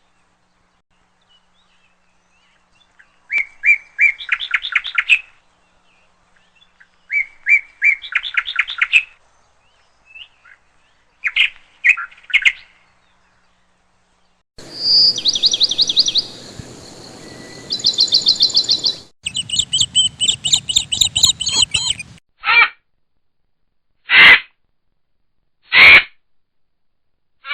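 Small birds chirping and twittering in quick series of high notes, in separate bursts with silent gaps. The background changes abruptly between bursts, as in spliced recordings, and several single loud calls come near the end.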